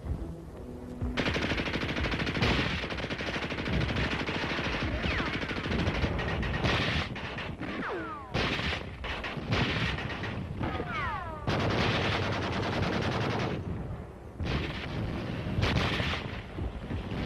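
Bursts of rapid machine-gun fire and gunshots, the sound of a battle, starting about a second in, with several short falling whistles in the middle.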